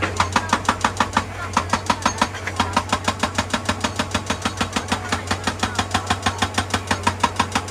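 Hydraulic rock breaker on an excavator hammering rock in a fast, even rhythm of about seven blows a second, over the steady drone of the excavator's diesel engine.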